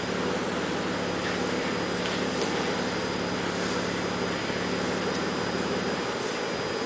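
Mitsubishi 3000GT VR4's twin-turbo V6 idling steadily with a low hum through a modified factory exhaust: 3-inch pipe into the stock muffler, with twin 2.25-inch tailpipes welded on.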